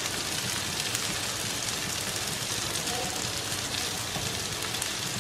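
Shallots and sliced mushrooms sizzling steadily in butter in a nonstick frying pan over high heat.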